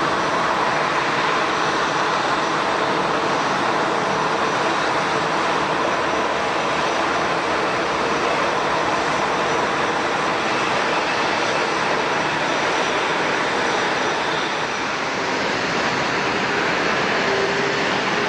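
Jet airliner engines running, a steady loud rushing noise with a faint high whine that holds level throughout.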